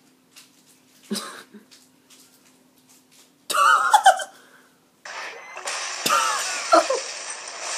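SpongeBob cartoon audio from a YouTube Poop edit, coming through a Nintendo 3DS's small speaker: a short cough-like sound about a second in, a loud burst of sliding pitched sound around the middle, then a hissy stretch of effects with pitched squeals over the last few seconds.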